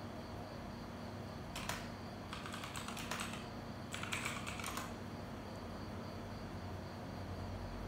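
Typing on a computer keyboard: three short runs of keystrokes, the first brief at about one and a half seconds in, then a longer run and another about a second apart.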